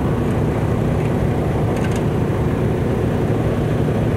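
Semi-truck diesel engine idling steadily, heard close up from beside the chassis.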